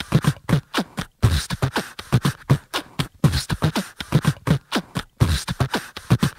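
Beatboxed rhythm: a steady pattern of kick-drum-like low thumps and crisp hi-hat-like ticks made with the mouth, with short breaks about a second in and about five seconds in.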